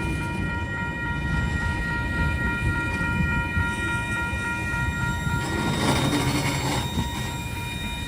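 Tasrail freight train rolling past on the rails, a low rumble with a steady high-pitched squeal over it that fades out about two-thirds of the way through. A short burst of hissing noise comes around six seconds in.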